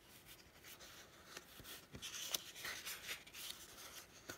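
Faint rustling and sliding of paper sticker sheets handled on a tabletop, with a few light taps.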